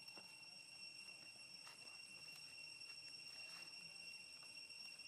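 Near silence with a faint, steady, high-pitched insect drone and a few faint soft clicks.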